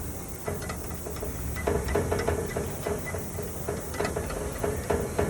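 Light, irregular clicks and rattles of hands working wiring and small hardware inside a vending machine, over a steady background hiss.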